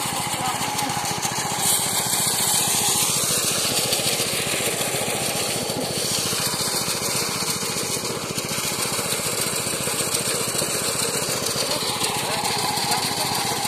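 Small engine of a motorized rice threshing machine running steadily under load, with a rapid even firing rhythm.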